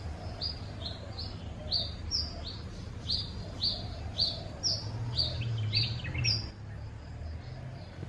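A small bird calling a series of short, sharp downward-slurred chirps, about two a second, stopping a little after six seconds in, over a steady low rumble.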